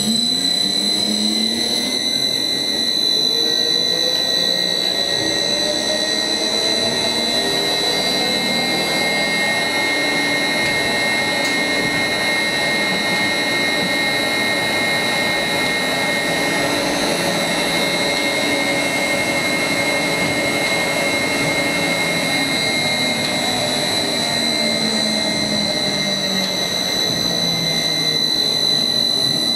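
Funicular haulage drive running through one trip: electric motor and Radicon gearbox turning the big sheave wheel. Its whine rises in pitch as it speeds up over the first several seconds, runs steady, then falls as it slows near the end, over a steady high-pitched whine.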